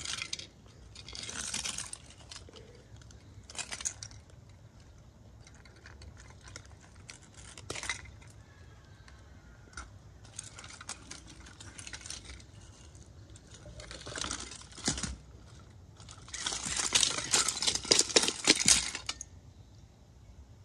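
Broken plastic casing pieces and circuit boards of a smashed CD player radio being handled and dropped on a concrete floor: scattered clattering and rattling, with a loud busy run of clatter late on.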